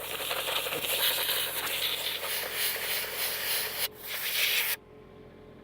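Compressed air hissing from a blow gun as junk is blown out of a hydraulic fitting: one long blast of about four seconds, a brief break, then a short blast that cuts off near the end.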